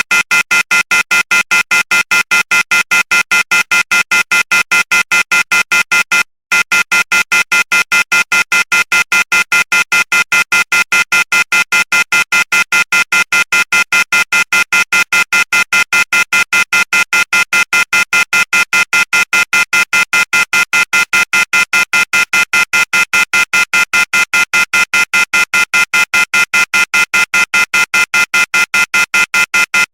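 Electronic phone tone beeping rapidly and without pause, a shrill two-pitched beep repeating several times a second, with a single brief dropout about six seconds in.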